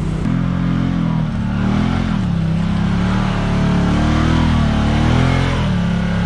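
Can-Am Maverick X3 side-by-side engine revving up and down unevenly as it crawls past over rocky ground, over another engine idling steadily.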